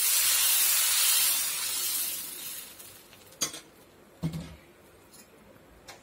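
Dosa batter sizzling with a loud hiss as it is poured onto a hot griddle, the hiss dying away over about three seconds. Then two short clinks of the ladle against the griddle.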